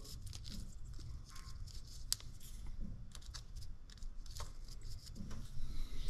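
Small handling noises: a plastic parts bag rustling and scattered light clicks as a small brass boiler sensor and its fibre washer are picked up and fitted together by hand.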